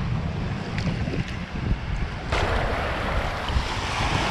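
Wind buffeting the microphone, with shallow sea water sloshing and splashing. The splashing starts suddenly about halfway through and carries on.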